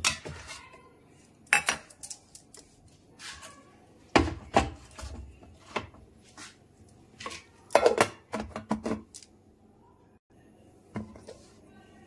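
Steel bowl and stainless-steel mixer-grinder jar clinking and knocking together as soaked soya chunks are tipped in and the jar is set on the mixer base: a string of separate sharp clanks, the loudest about a third and two-thirds of the way through.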